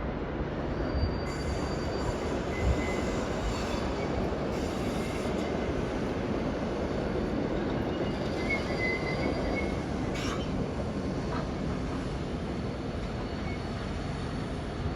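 A train running on the rails with a steady rumble, with a brief high wheel squeal a little past the middle.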